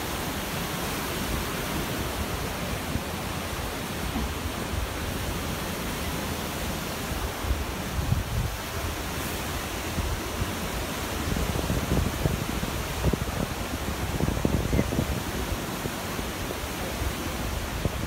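Rough sea surf breaking in a steady rush of white noise on a sandy beach, with gusts of wind buffeting the microphone now and then, strongest about eight seconds in and again a few seconds before the end.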